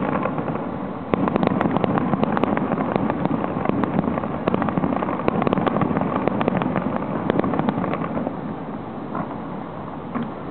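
Fireworks finale: a rapid, dense barrage of bangs and crackling from aerial shells and ground-level mines over a continuous rumble, thickening about a second in and thinning out over the last couple of seconds.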